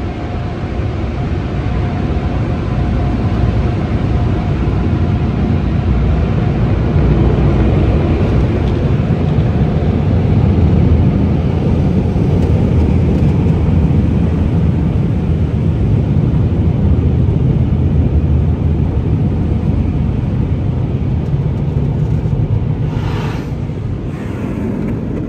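Automatic tunnel car wash heard from inside the car: a loud, steady rush of water spray and machinery on the bodywork, building toward the middle and easing off near the end as the car leaves the tunnel.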